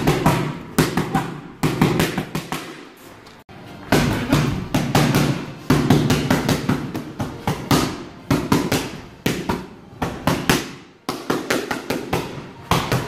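Boxing gloves smacking into hand-held focus pads in fast combinations of several punches, with brief pauses between combinations.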